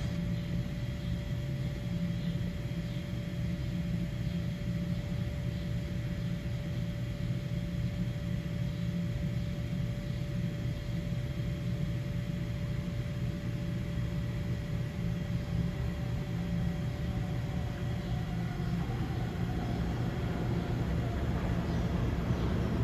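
Steady low rumble of an underground subway station, with a faint steady hum that fades out about three-quarters of the way through.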